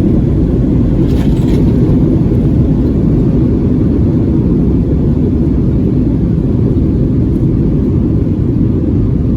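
Steady low rumble of jet engines and airflow inside the cabin of a Boeing 737-900ER during its landing at Atlanta.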